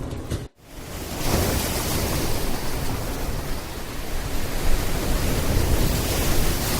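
A steady rushing noise, like wind or road noise on a body-worn microphone, after a brief dropout about half a second in.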